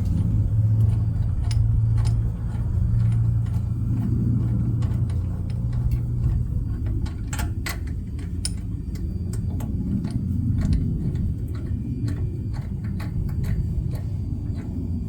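Scattered small clicks and clinks of carburetor parts and an air filter being handled and fitted, over a steady low hum.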